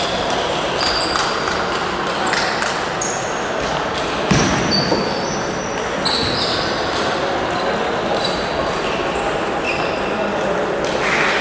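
Table tennis balls clicking off bats and tables from several matches in a large echoing sports hall, with short high squeaks of shoes on the floor and background chatter. A louder thump comes about four seconds in.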